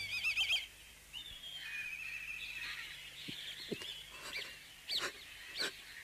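Birds chirping outdoors: a quick warbling trill at the start, a softer twittering trill after it, and several short, sharp calls in the second half.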